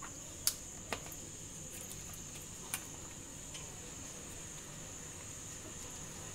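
Turmeric leaves being folded and handled on a stainless steel plate: a few soft crackles and three short sharp clicks, about half a second, one second and nearly three seconds in, over a steady high-pitched whine.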